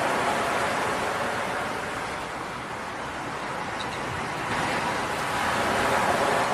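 Ocean surf washing in and out, a steady rush that slowly swells, eases and swells again.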